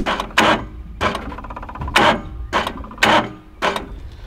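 Sharp clicks and clunks, about seven at irregular intervals, from handling a boat's outboard motor while getting it ready to start.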